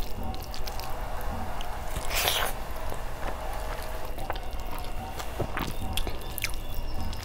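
Close-miked eating sounds: wet chewing and mouth clicks on a mouthful of rice and curry, with fingers squelching through rice and gravy on the plate. A short, louder noise comes about two seconds in.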